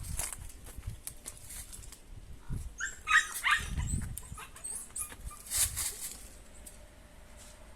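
Šarplaninac puppies giving a few short, high-pitched yelps about halfway through, among scattered scuffling and rustling from their play.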